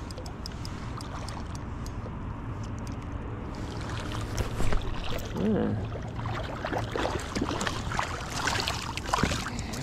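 A hooked walleye splashing at the surface as it is reeled in to the shallows, the splashing starting about four seconds in. A low steady hum runs underneath.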